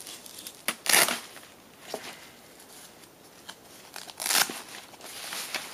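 Rustling and handling of a cloth backdrop and a nylon carrying bag being moved about: a few short rustles, the loudest about a second in and another just past four seconds.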